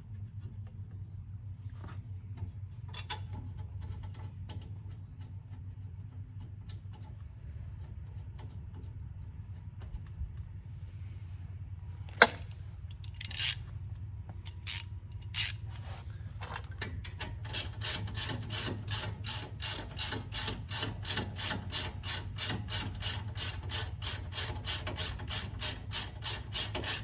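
Hand ratchet wrench clicking in an even rhythm, about three clicks a second, starting about two-thirds of the way in as brake caliper bolts are run in. Before it, a few scattered metal clinks and one sharp knock, over a steady low hum.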